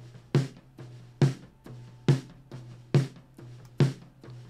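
Recorded snare drum track played back solo, with a low-cut filter on its channel strip: five snare hits evenly spaced a little under a second apart, each with a short low ring.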